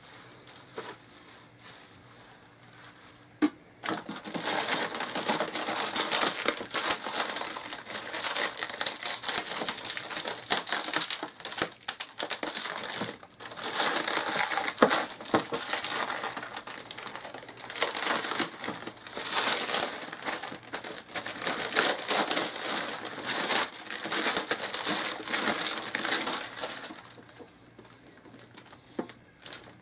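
Packaging wrapping crinkling and rustling as it is handled and pulled off, in long stretches with short breaks. It starts after a sharp click about three and a half seconds in and stops near the end.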